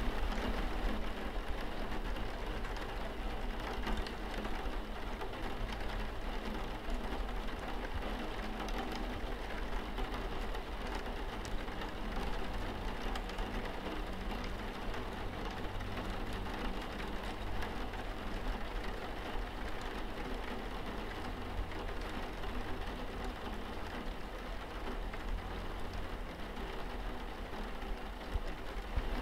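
Steady rain pattering on a window pane, with a low rumble underneath.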